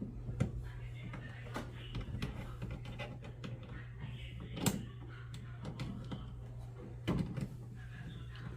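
Scattered knocks and clicks of parts and tools being handled during reassembly of a front-load washing machine, with sharper knocks about four and a half and seven seconds in, over a steady low hum.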